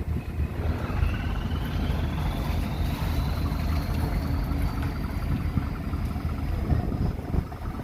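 Fishing boat engine running steadily with a low rumble, wind buffeting the microphone. A faint high whine climbs slowly in pitch across the stretch.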